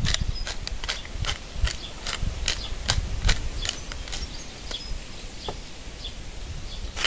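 Wood fire crackling, with irregular sharp pops and snaps over a faint low rumble.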